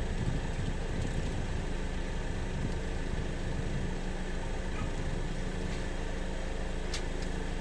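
An engine idling steadily with a low, even hum. A brief sharp click comes near the end.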